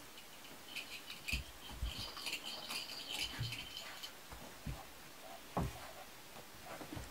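Kuvasz puppies squeaking and yipping in short, high-pitched cries while they play-wrestle, for about three seconds starting about a second in, with soft thumps of paws and bodies on the blanketed floor.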